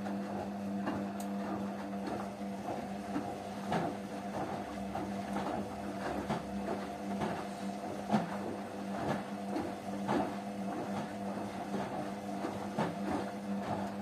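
Two front-loading washing machines, a Hotpoint Ariston and a Rainford, tumbling wet laundry in their drums: a steady motor hum with irregular knocks and swishes as the wash turns over.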